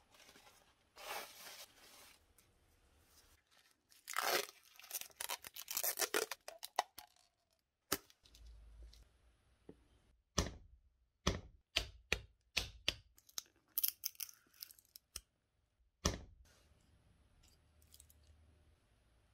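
Paper towel rubbed along a steel kitchen knife blade, then an old wooden knife handle being split off with a chisel: a dense run of splintering, tearing wood followed by a string of sharp cracks, then the pieces handled.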